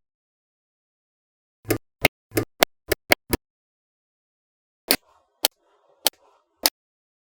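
Small magnetic balls clicking sharply as they snap together one at a time: a quick run of about seven clicks, then four more at a slower, even pace.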